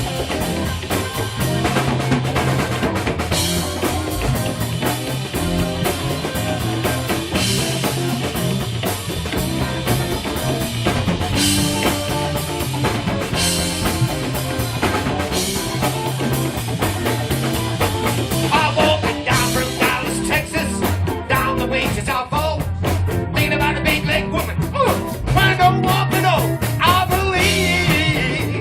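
Live blues band playing an instrumental break: drum kit, bass and electric guitar, with a lead line of bending notes in the second half.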